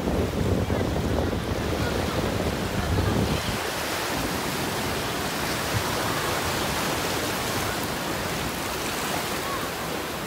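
Ocean surf breaking and washing up a sandy beach, a steady hiss. Wind buffets the microphone with a low rumble for the first three seconds or so, then eases off.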